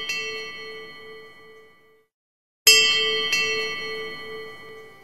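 A bell rings and dies away, is struck again hard about two and a half seconds in and once more half a second later, each ring fading slowly with a pulsing waver in its tone.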